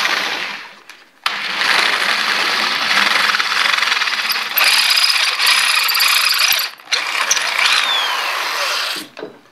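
A drill bit enlarging bolt holes in a steel motor mounting plate, a loud grinding rasp. A short burst comes first, then after a pause one long run with a brief break about seven seconds in.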